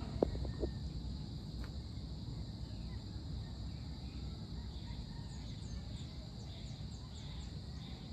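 Rural outdoor ambience as a thunderstorm approaches: a low, steady rumble under a constant high insect drone. A few faint knocks come in the first second, and a string of short, high chirps follows from about five to seven seconds in.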